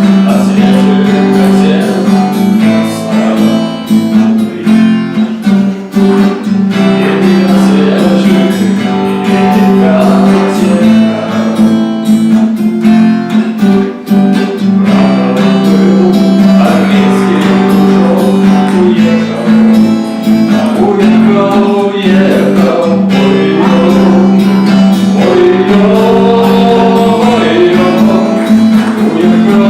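Acoustic guitar strummed steadily in an instrumental passage, loud and continuous.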